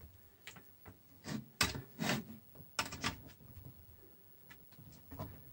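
A series of light clicks, knocks and rustles as a power-supply cable is handled and its plug is fitted into a Commodore 64's power socket.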